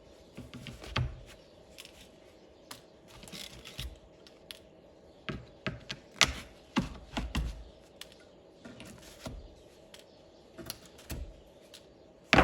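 Irregular light clicks and knocks of hand work, with a few dull thumps about one and six to seven seconds in and a sharp loud knock at the very end.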